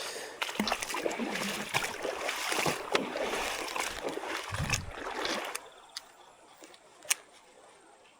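Water sloshing and splashing, scattered with clicks and knocks, for about five seconds. Then it settles to faint running creek water, with one sharp click near the end.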